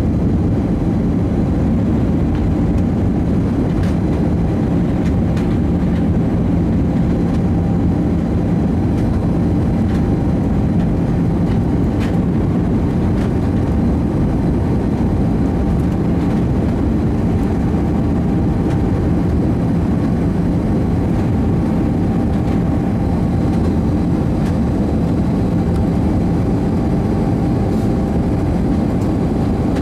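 Cabin noise inside an Airbus A319 on approach: the steady hum of its jet engines and rushing airflow, a dense low drone with a faint steady whine over it.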